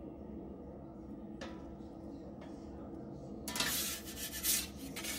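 Metal pizza peel scraping across the stone floor of a wood-fired oven as the pie is taken out: two brief scrapes, then a louder, longer scrape from about three and a half seconds in, over a steady low hum.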